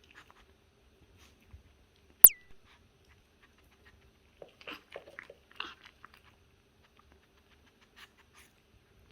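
A black-and-tan Pomeranian puppy eating, chewing its food with scattered small crunches and clicks. One much louder sharp clink comes about two seconds in.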